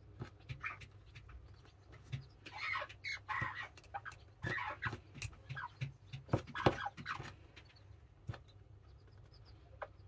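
Broody Serama bantam hens clucking softly in short, scattered calls, with a few sharp taps among them. The loudest tap comes about two-thirds of the way through.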